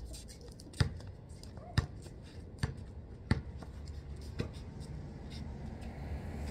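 Basketball bouncing on a concrete driveway: five bounces about a second apart, then the bouncing stops. A low steady rumble builds near the end.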